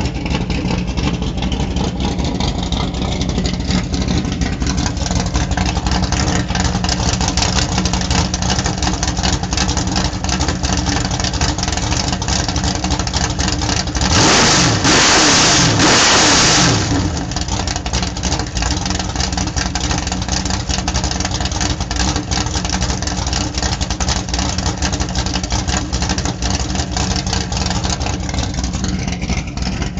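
1973 Ford Maverick's 306 cubic-inch small-block V8 idling steadily, revved once about halfway through for a few seconds, then dropping back to idle.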